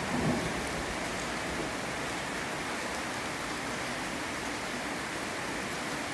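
Steady rain falling, an even hiss, while the rumble of a departing train fades out in the first moment.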